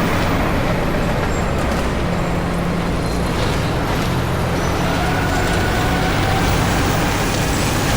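Steady motor-vehicle engine and road noise: a low, even hum under a constant noise.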